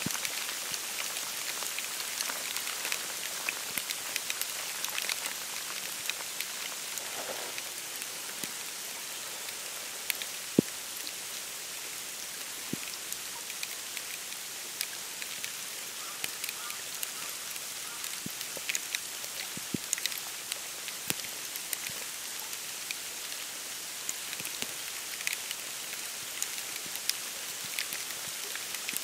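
Snow falling on dry reeds and bare branches, a steady fine pattering hiss made of countless tiny ticks. A few louder taps stand out, the sharpest about ten seconds in.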